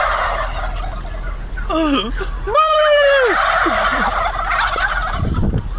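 A large flock of domestic turkeys gobbling together in two waves. The second wave breaks out right after a single long call that holds its pitch and then drops.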